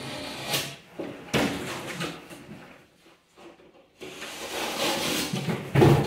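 Handling noise from working with a piece of plasterboard: a few sharp knocks and a stretch of scraping, with the loudest knock near the end.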